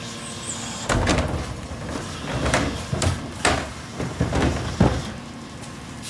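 Rear-loader garbage truck's cart tipper dumping a plastic wheeled trash cart: about six knocks and bangs of the cart against the tipper as it is emptied and lowered, over the truck's diesel engine running.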